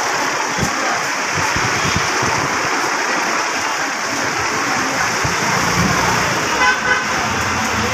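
Steady din of road traffic mixed with crowd noise, with a short high horn toot about seven seconds in.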